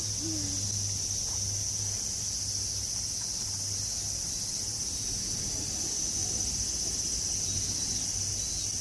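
A steady, high-pitched chorus of insects trilling without a break, over a faint low hum.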